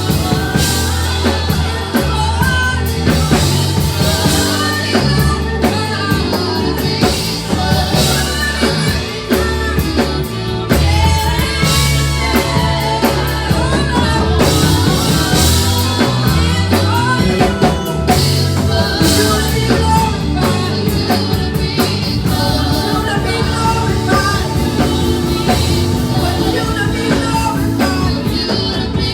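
Gospel worship music: a band with drum kit and bass plays under singing voices.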